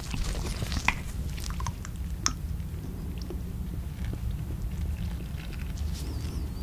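Close-miked handling sounds as Buldak hot sauce is squeezed from a plastic bottle by rubber-gloved hands: a few sharp clicks and ticks in the first couple of seconds, then soft squishy sounds, over a steady low hum.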